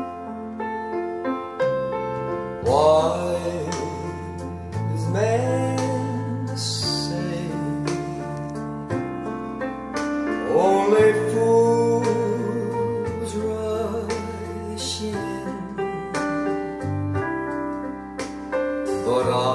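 A slow recorded song with piano, held bass notes and a singer with vibrato, played through home-built two-way bookshelf speakers with SB Acoustics woofers and tweeters.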